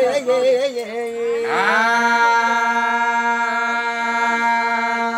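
A man singing a Telugu devotional song in a melismatic, chant-like style. A short wavering phrase gives way, about a second and a half in, to one long held note that lasts nearly four seconds.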